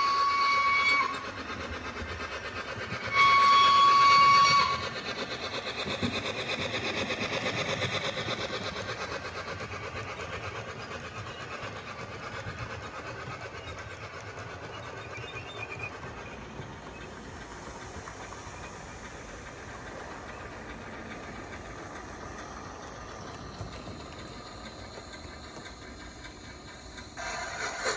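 Model steam locomotive's DCC sound decoder playing a steam whistle: two steady blasts at one pitch, the first ending about a second in, the second, louder one about three seconds in. Then the locomotive's running sound goes on steadily and slowly fades.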